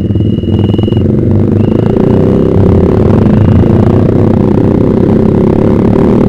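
Yamaha Vixion's single-cylinder four-stroke engine running through a Proliner TR1 short aftermarket exhaust while riding at a steady pace, getting a little louder about two and a half seconds in.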